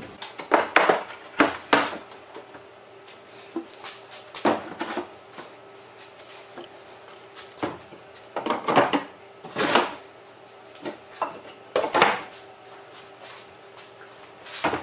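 Plastic 5-gallon fuel cans being set down and slid into a wooden box: a string of irregular hollow knocks and scrapes of plastic on wood.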